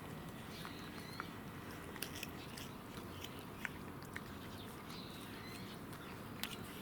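A cat eating: quiet chewing and biting with a few sharp, scattered clicks.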